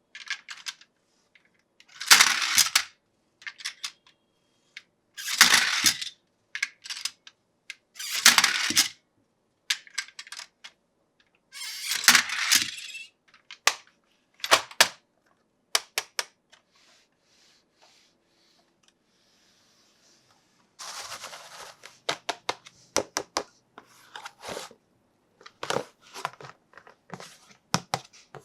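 Toy unboxing handling sounds: short bursts of crinkling plastic packaging, about one every three seconds, then a run of clicks and taps of hard plastic toy parts.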